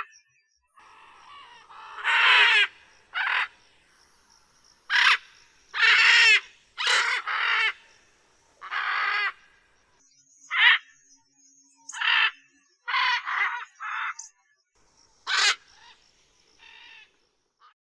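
Macaw giving a series of about fifteen harsh, raspy squawks, each under a second long and separated by short pauses, some in quick runs of two or three.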